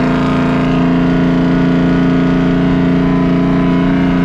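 Heavy truck's diesel engine pulling at steady revs while driving, heard from inside the cab as a loud, even drone that does not change pitch.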